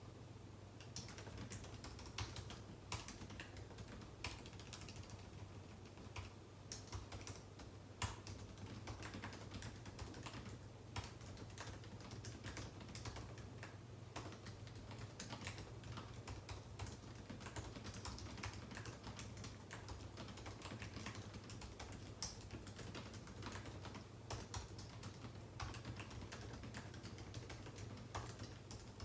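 Continuous typing on a computer keyboard: a rapid, uneven run of key clicks starting about a second in, some keystrokes sharper than others, over a steady low hum.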